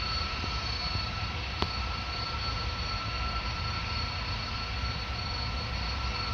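Airliner jet engines running at a distance: a steady whine of a few fixed high tones over a low rumble.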